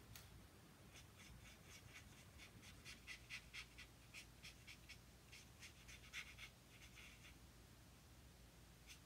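Faint, quick strokes of a Stampin' Blends alcohol marker's brush tip colouring on white cardstock, about three strokes a second, pausing for a moment near the end before starting again.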